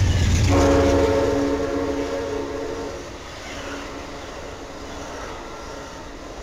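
Amtrak passenger train rolling past with a steady low rumble from its cars. A locomotive horn chord sounds about half a second in and holds for about two and a half seconds, then the rumble continues more quietly.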